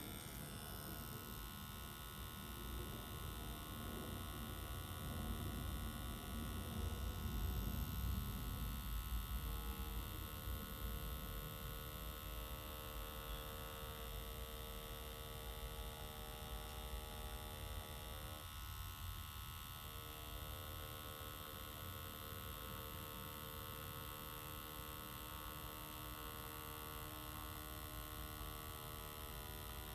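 Pen-style tattoo machine with a three-round liner needle running, a steady electric hum as it draws lines. The hum is briefly louder about eight seconds in.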